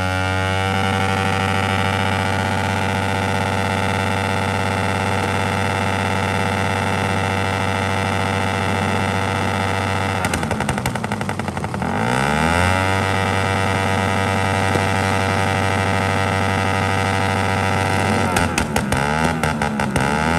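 Suzuki Raider 150 single-cylinder four-stroke engine held at high revs through a straight exhaust during a stationary burnout, rear tyre spinning on the road. About ten seconds in, the revs drop with crackling pops and climb back. Near the end, a quick run of backfire pops as the revs dip and rise.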